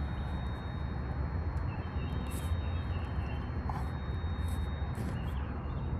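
Outdoor ambience: a steady low rumble of distant traffic, with a faint steady high whine and a few faint bird chirps about two to three seconds in.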